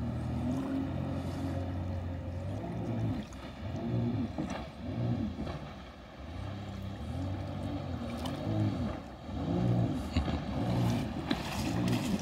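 Jet ski engine running hard, its pitch rising and falling again and again as the craft races and turns across the water.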